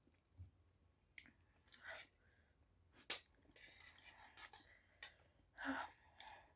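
Faint mouth noises of someone eating spicy ramen noodles: chewing with scattered small clicks, one sharper click about three seconds in, and a soft rustling stretch in the middle.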